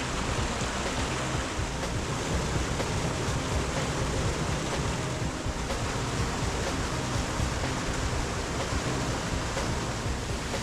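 Fast-flowing creek water rushing, a steady, full noise.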